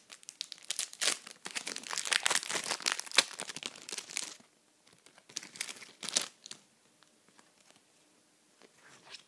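A Match Attax card packet's plastic wrapper being torn open and crinkled by hand: dense crackling for about four seconds, then two shorter bursts of crinkling a little later.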